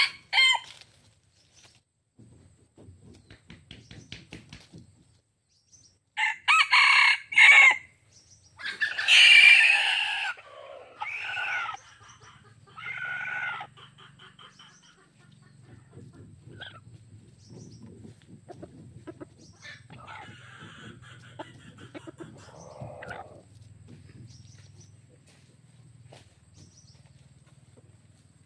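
Red junglefowl roosters crowing: a short crow about six seconds in, then a louder crow in several parts from about nine to fourteen seconds, and a fainter crow a little after twenty seconds.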